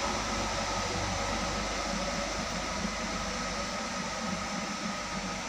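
Engines of a dump truck and a minibus pulling away up a wet mountain road, a low rumble that fades about halfway through, under a steady hiss.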